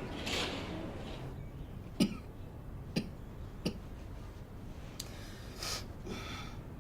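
A sick man coughing: several short, sharp coughs about a second apart, then a longer, rougher cough near the end.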